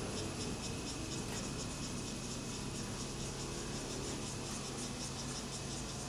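Insects chirping in rapid, evenly repeated high-pitched pulses over a steady low hum.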